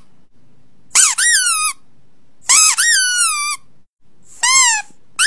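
Kitten meowing: three high-pitched meows, each rising then falling in pitch, spaced about one and a half to two seconds apart, with a fourth starting at the very end.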